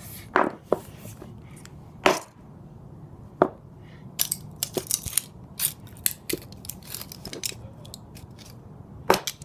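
A sledgehammer striking an old Apple Watch case: sharp single blows near the start, about two seconds in, about three and a half seconds in and near the end, with a run of lighter clicks and taps in between.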